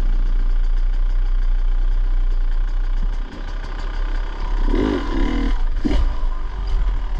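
Dirt bike engine running at low speed, dipping briefly about three seconds in. A short wavering sound rises over it about five seconds in.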